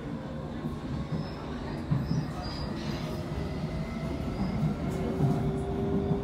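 Amsterdam metro train running at speed, heard from inside the carriage: a steady rumble of wheels on the rails that grows slightly louder toward the end.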